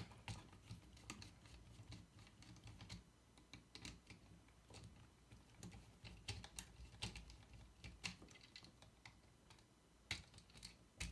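Faint, irregular small clicks and ticks as a screwdriver works the terminal screws on a wall outlet and the wires are unhooked from them.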